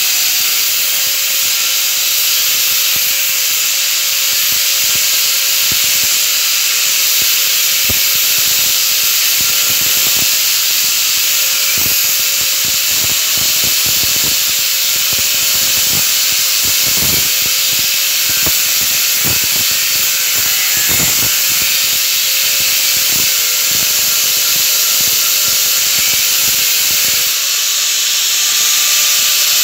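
Electric angle grinder with an abrasive disc grinding into a metal frame, a steady loud hissing rasp over the motor's whine, with irregular scrapes as the disc bites. Near the end the disc comes off the metal and the grinder spins free with a higher, smoother whine.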